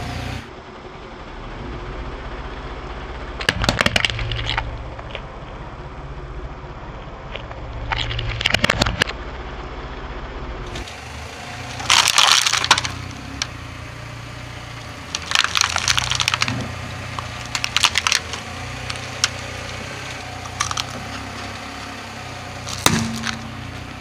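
A car tyre rolling over clear plastic items, cracking and crunching them in a series of sharp crackling bursts a few seconds apart, about seven in all. Underneath runs the steady low hum of the car's idling engine; the loudest crunch comes about halfway through.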